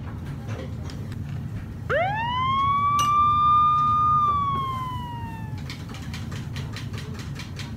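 A single whistle-like tone that rises sharply about two seconds in, holds steady for about two seconds, then slides slowly down and fades. Light clicks and a steady low hum run underneath.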